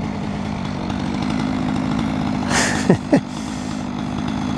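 Chainsaw running steadily at cutting speed while a felling notch is cut into the trunk of an apple tree, with two short sharp sounds about three seconds in.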